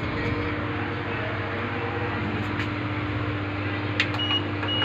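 Steady hum inside a lift car, then a click and two short high beeps from the car's keypad as a button is pressed near the end.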